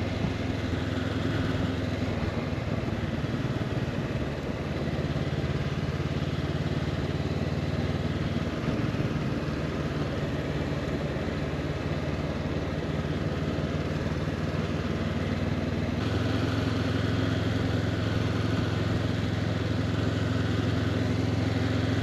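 Honda CB500X motorcycle's parallel-twin engine running steadily on the move. Its note shifts a few times and picks up about 16 seconds in.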